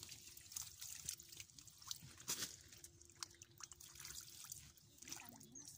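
Faint dripping and small splashes of shallow muddy water, stirred by a hand groping in the mud, with scattered short clicks.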